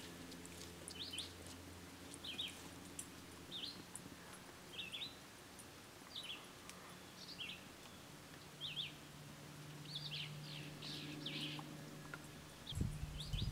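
A small songbird chirping repeatedly, short high downslurred notes about once a second, over faint outdoor ambience. A low rumble and a thump come just before the end.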